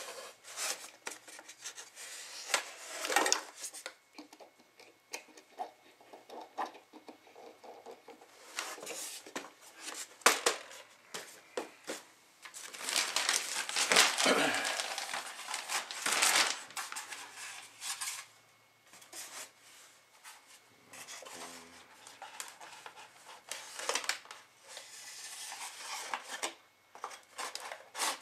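Handling noise from unpacking a foam RC model airplane: the foam fuselage and plastic packaging being moved, rustling and knocking in irregular clicks. A longer stretch of rustling comes about halfway through.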